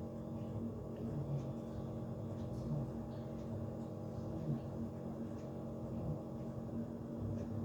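Quiet, steady low hum with a few faint small ticks and rustles.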